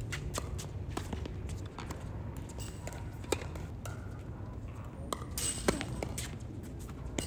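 Tennis ball and racket on a hard court: scattered ball bounces and footsteps, then a racket strikes the ball on a serve a little past halfway, the loudest sound, just after a short rush of noise. A steady low hum runs underneath.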